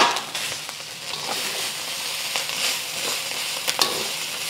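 Ground pork sizzling in its own fat in a steel wok, on the heat left after the burner has just been switched off, while a metal wok ladle stirs and scrapes it. The ladle gives a scrape at the start and a few sharp clicks against the wok near the end.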